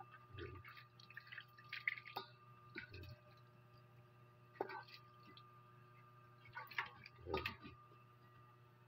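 Freshly caught fish being handled in a basin: faint wet slaps, drips and scattered small clicks as hands move the slippery fish around.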